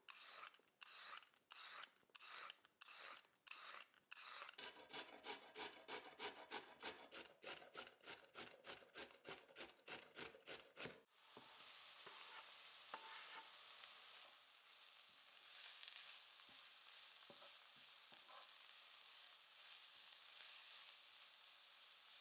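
Vegetable peeler scraping along a carrot in short strokes, then faster, even rasping strokes, about three a second, as the carrot is grated. About eleven seconds in these give way to steady sizzling of grated carrot and sliced onion frying in oil in a pan, with a wooden spoon stirring now and then.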